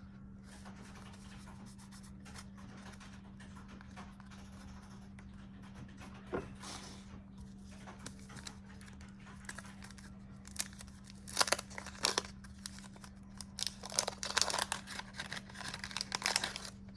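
Wax paper wrapper of a 1989 Fleer baseball card pack being torn open and crinkled, in short bursts through the second half, over a steady low hum.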